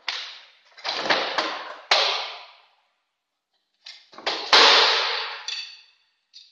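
Large plastic banner sheet rustling and crackling as an aluminium roll-up banner stand is lifted and turned over, in two stretches. A sharp knock about four and a half seconds in, as the stand's base comes down on the table.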